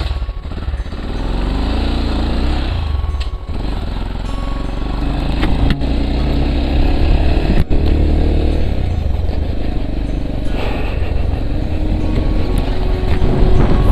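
Motorcycle engine running on the move, its note rising several times with the throttle, over a heavy steady low rumble, with a few brief knocks.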